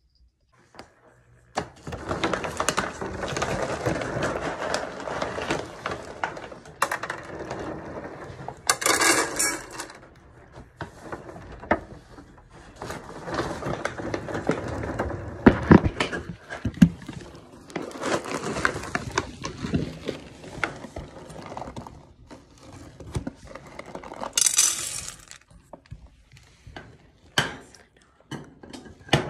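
Clinks and rattles of pet bowls and food being handled as pets are fed, with two brief, bright rattles about nine seconds in and again near twenty-five seconds.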